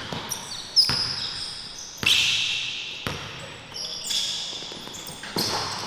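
Indoor basketball game: the ball bouncing on the court with sharp knocks, and sneakers squeaking in short high squeals, echoing in a large gym hall.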